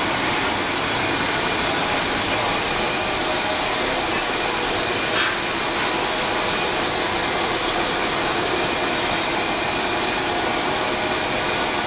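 Steady, even hiss and hum of a 2011 Daeyang textile loop steamer running in operation.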